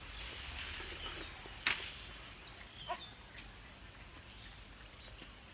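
Birds chirping now and then over a quiet rural background, with one sharp click about two seconds in.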